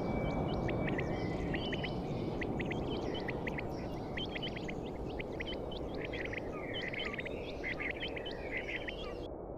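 Many short bird chirps over a low rumble that slowly fades. The chirps and the high sounds cut off abruptly near the end.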